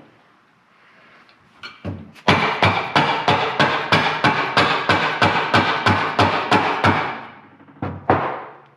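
Rapid hammering on a valve spring retainer of a Ford 4.0 V6 cylinder head, about six metallic, ringing blows a second for several seconds, with a few single knocks before and after. The retainer is being beaten loose because it is stuck.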